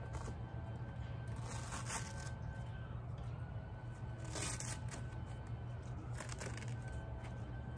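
Velcro straps on an E-Z Up Camping Cube wall being ripped open from the frame pole: three short tearing rips, the first and longest about a second and a half in, the others near four and a half and six seconds, with fabric rustling between.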